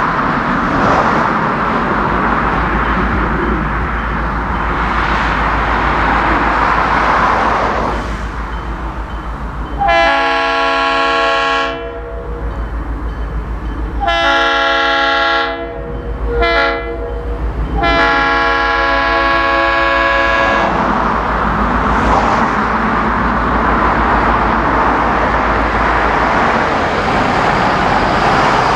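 Diesel locomotive's multi-chime air horn sounding four blasts, long, long, short, long: the standard grade-crossing signal. A steady rumbling running noise of the moving train fills the rest.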